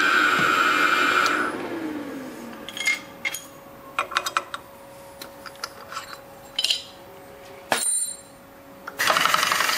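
Drilling machine spindle running with the drill in an aluminium cylinder head, then switched off about a second in and winding down with a falling tone. After that, light metal clicks and clinks as the drill chuck is opened by hand and the tool changed, with a sharp knock shortly before a louder burst of noise near the end.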